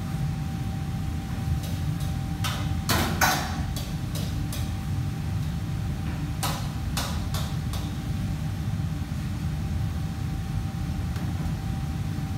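Commercial kitchen background noise: a steady low hum with a faint steady tone over it, and a few sharp knocks and clatters, the loudest a short cluster about three seconds in and more a few seconds later.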